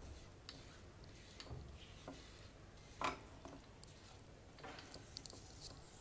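Spatula scraping and stirring a thick paste of gram flour and ghee around a nonstick frying pan, faint and irregular, with a slightly louder scrape about three seconds in.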